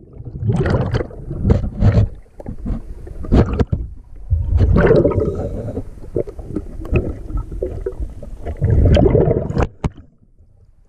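Underwater bubbling rumbles from a scuba diver's exhaled breath, coming in bursts about every four seconds, with scattered sharp clicks and knocks in between.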